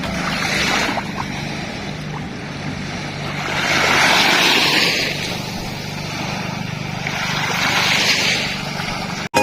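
Sea waves washing onto a beach, the surf swelling roughly every four seconds, over a steady low hum.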